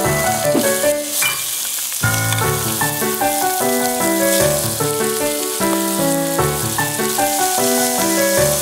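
Background music with a melody of short held notes, over chicken pieces sizzling as they fry in a non-stick Snow Peak Yaen Cooker 1000 pot on a gas stove.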